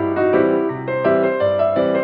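Background instrumental music: a melody of even, quickly changing notes over a lower bass line.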